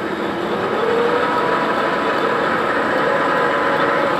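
Metal-turning lathe spinning a steel crankshaft in a steady rest while a centre drill cuts into the end where the timing-drive bolt broke off, taking the first chips. Steady machine noise with a whining tone that steps up in pitch about a second in.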